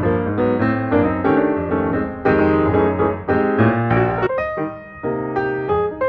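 Background piano music: a melody of short notes over sustained lower notes.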